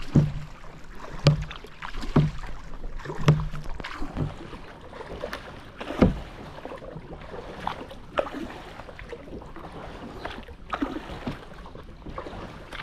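Double-bladed kayak paddle strokes: the blades dipping and splashing in the water with sharp knocks, about one stroke a second for the first few seconds, then fewer and more spaced.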